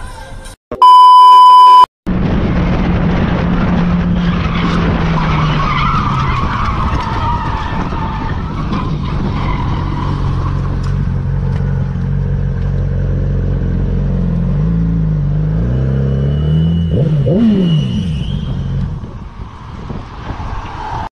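A loud electronic beep about a second in. Then a sport motorcycle's engine runs steadily at highway speed under a heavy rush of wind noise. Near the end the engine pitch swings down and up a few times before the sound drops away.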